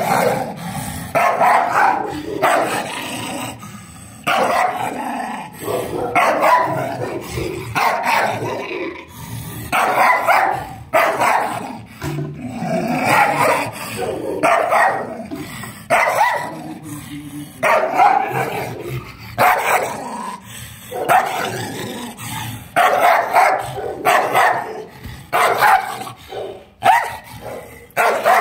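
A chained dog barking aggressively, harsh barks coming about once a second with snarling and growling between them: a threat display with teeth bared.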